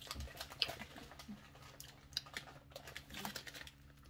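Plastic snack wrappers rustling and crinkling faintly as the packets are picked up and handled, in a scatter of small crackles and taps.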